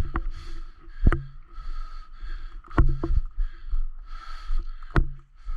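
Airsoft guns firing single shots: five sharp cracks spread irregularly over the few seconds, with rustling of movement in between.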